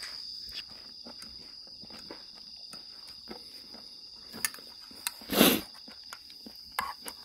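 Crickets chirping steadily in a high, even trill, with small clicks and taps of a plastic spoon against an aluminium camping pot while soup is scooped. A short, louder rushing noise stands out about five and a half seconds in.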